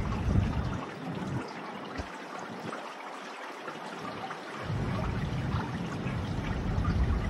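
Wind buffeting the phone's microphone in gusts, a heavy low rumble for the first second and again from about five seconds in, over a steady hiss of distant city and traffic noise.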